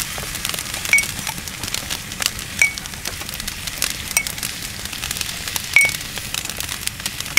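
Metal spoon clinking against a glass jar as oil is spooned out: about four short ringing pings, evenly spaced about a second and a half apart, over a faint steady crackle.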